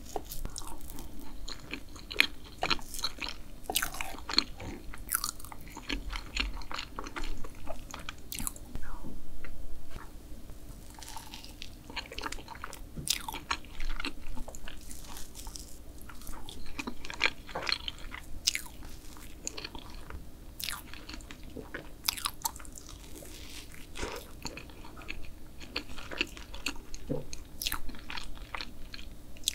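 Close-miked eating of cream cakes and pastries: bites, chewing and many small wet mouth clicks and smacks, with a few crisper crunching bites.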